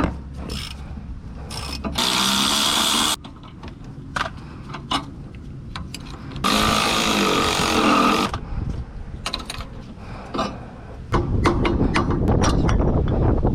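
Power impact wrench run in two bursts, about a second and then about two seconds long, breaking loose brake or hub bolts, with metal clicks of tools and parts between. Near the end, a steady low rumble of wind on the microphone.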